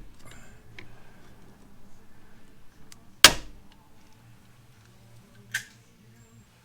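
Hand pop-rivet gun setting a rivet in an aluminum panel: a loud, sharp snap about three seconds in as the rivet's mandrel breaks off, then a fainter click near the end.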